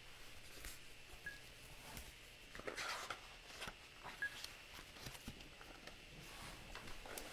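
A hardcover picture book being opened and its pages turned: faint paper rustling and a few soft knocks, the loudest rustle about three seconds in.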